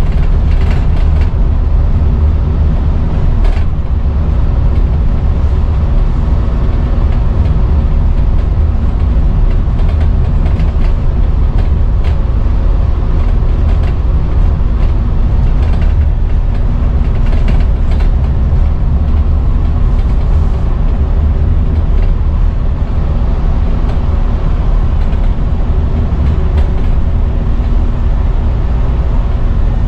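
Scania N230UD double-decker bus under way, heard from the upper deck: a steady, loud, low drone from its five-cylinder diesel engine and road noise. Interior fittings give short rattles and creaks now and then.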